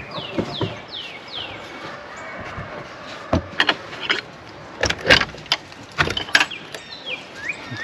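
Chicks peeping in short falling peeps, with a run of sharp knocks and rattles in the middle as the latched door of the chicken run is worked open.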